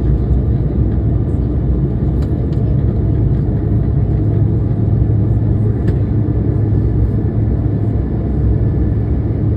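Airliner cabin noise during the climb after takeoff: a loud, steady low rumble of engines and rushing air heard from inside the cabin.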